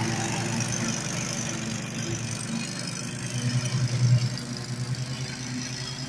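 Custom zero-turn riding mower built on a Toro TimeCutter running steadily while it cuts tall grass, its engine sound easing as the mower drives away, with a brief swell about two thirds of the way through.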